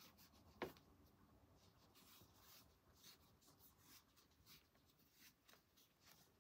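Near silence with faint, soft rustling of cotton yarn being pulled through stitches by a crochet hook, and a small tick about two-thirds of a second in.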